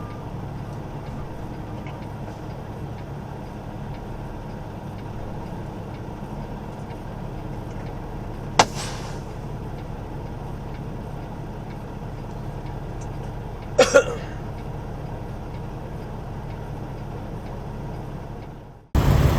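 Semi truck's diesel engine idling steadily, with a sharp click and brief hiss partway through and a quick double click later.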